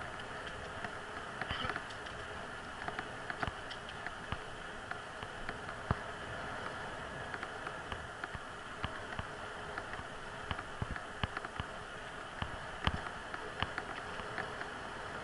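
Bicycle rolling along an asphalt path, heard from a camera mounted on the bike: a steady rushing noise of tyres and air, with frequent irregular small clicks and rattles.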